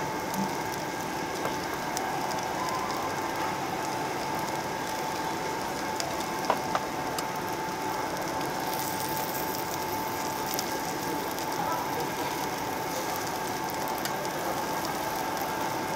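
Slices of pork belly sizzling and crackling steadily on a perforated steel tabletop grill plate, with fine pops of fat throughout. Two sharp clicks come about halfway through.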